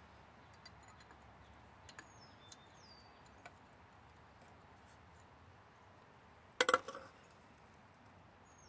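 A wrench clinking against metal engine parts: a few light ticks, then a quick cluster of clinks about two-thirds of the way in. Short descending bird chirps sound a couple of times in the background.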